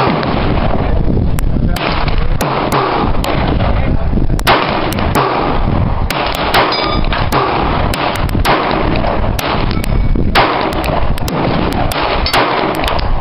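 Gunfire at a shooting range: a rapid, irregular string of shots, a couple of dozen in all, over constant loud noise.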